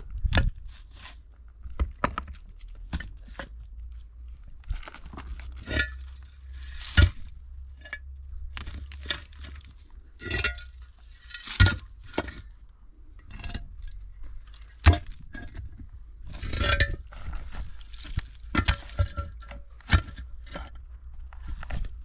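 Hollow concrete blocks being set down and shifted into place on stony ground: irregular knocks, clinks and scrapes of block against block and against stone, with a few sharper knocks standing out.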